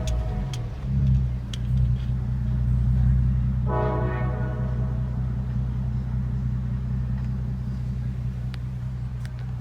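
A VW Golf R32's 3.2-litre VR6 engine running steadily at low revs, swelling briefly about a second in. A horn sounds for under a second about four seconds in.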